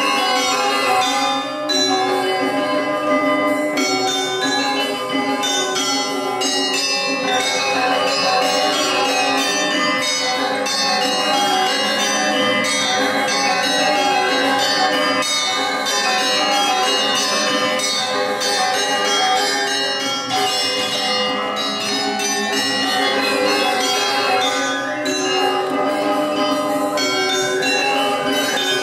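Balinese gamelan music: metallophones ringing in a dense, continuous run of many overlapping notes.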